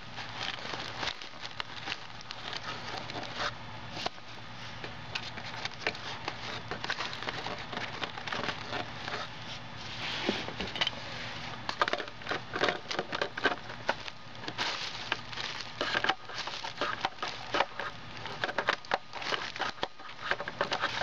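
Wads of crumpled paper and plastic wrappers crackling and crinkling as they are pushed out of a Lego-brick compactor, in irregular sharp clicks that grow busier about halfway through.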